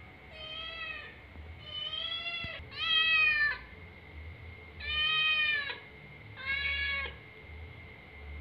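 Kitten meowing five times at a door, asking to be let in; the third meow is the loudest.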